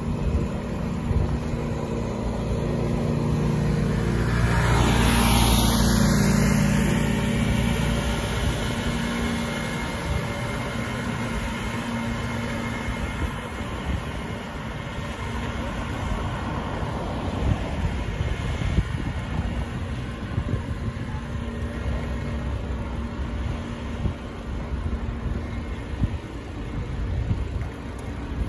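City street traffic heard from a moving bicycle: a motor vehicle's engine runs close by and a vehicle passes loudest about five seconds in, then a steady hum of traffic and road noise.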